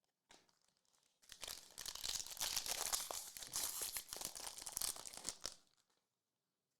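A foil trading-card pack being torn open and its wrapper crinkled: dense crackling starts about a second in and stops shortly before the end.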